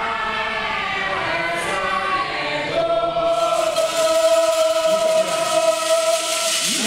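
A group of men singing a chant together as a choir. About three seconds in, they settle on one long held note that runs to the end.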